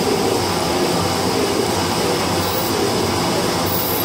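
Metal shaper running, its ram stroking back and forth as the cutter takes a slow cut in tough steel. A short high hiss recurs about every second and a quarter in the second half.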